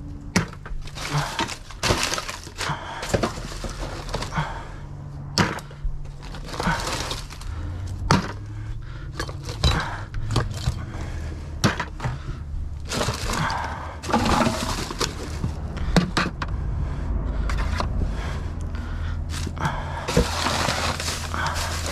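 Used metal oil filters clanking and knocking as they are picked out of a dumpster and dropped into a bucket, with rummaging scrapes between the irregular knocks. A low steady hum runs underneath.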